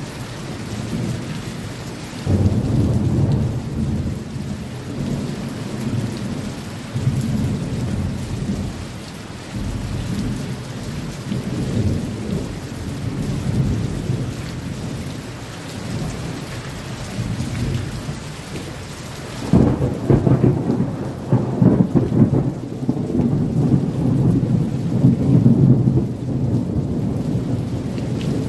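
Steady rain with deep rolling thunder. A rumble swells about two seconds in, and a louder roll of thunder breaks out suddenly about two-thirds through and rumbles on to near the end.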